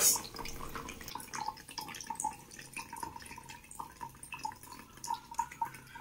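A thin stream of water trickling from a drinking straw into a plastic jug, with faint irregular drips and splashes; the flow is driven by the air of a balloon pressing down on the water in the bottle.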